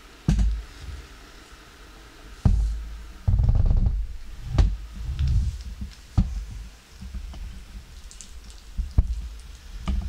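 Bagotte BG700 robot vacuum running on a wooden floor, a faint steady whir under irregular low thumps and a few sharp clicks. The heaviest thumps come about three and a half seconds in.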